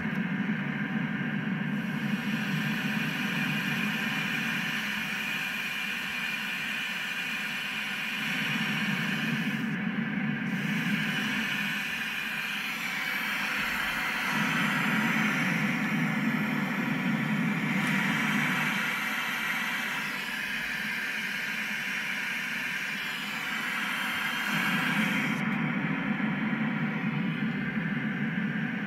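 EMS Synthi noise generator putting out continuous noise while its Colour control is swept back and forth between Low and High several times. The sound alternates between a dull, low-pitched noise and a bright hiss.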